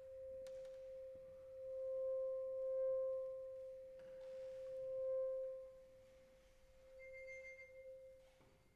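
Contemporary chamber music: one long-held, nearly pure tone on a single pitch, swelling louder and softer about twice. Near the end it thins and faint high bell-like overtones join it.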